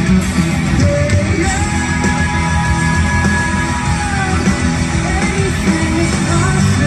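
Live rock band playing in an arena, recorded from the crowd: loud electric guitars, bass and drums, with a long held note through the middle.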